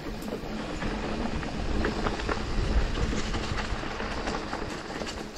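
Mountain bike rolling over a rough trail: continuous tyre and rolling noise with a low rumble, and many small clicks and rattles from stones and the bike.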